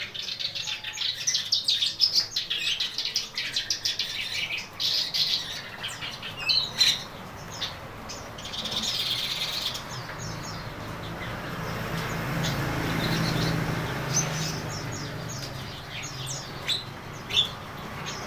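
Black-browed reed warbler singing a fast, chattering song of rapid high notes, then breaking into scattered phrases after about ten seconds. A low, steady rumble swells and fades in the second half.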